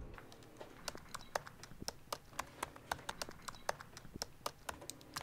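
Typing on a laptop keyboard: faint, irregular key clicks, a few a second, starting about a second in.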